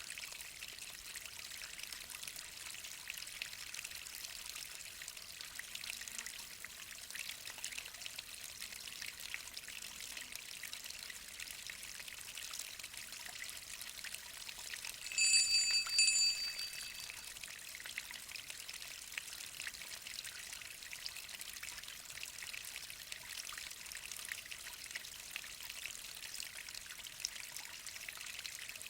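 Small mountain waterfall: a steady splashing and trickling hiss of falling water. About halfway through, a brief high-pitched tone lasting a second or two rises above it.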